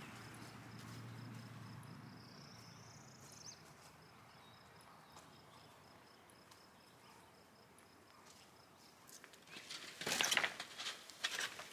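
Quiet outdoor background with a faint insect-like whine and one short rising bird chirp, then about nine seconds in a burst of sharp knocks, rattles and crunches, loudest near the end, as the chicken tractor is grabbed to be moved.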